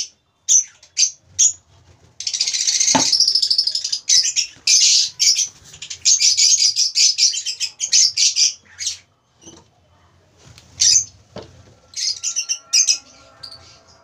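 Lovebirds chirping in high-pitched, rapid calls: a dense run lasting several seconds, then shorter bursts. Two sharp knocks come from the hinged wooden nest box being handled.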